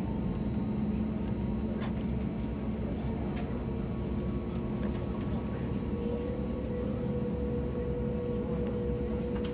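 Steady cabin drone of an Airbus A321neo with its right-side Pratt & Whitney PW1100G geared turbofan running after start and the left engine not yet started. A higher steady hum joins about six seconds in, and there are a couple of faint clicks.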